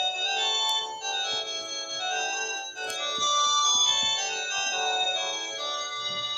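Panasonic cordless phone ringtone: a synthesized polyphonic melody, with several notes sounding together and changing quickly.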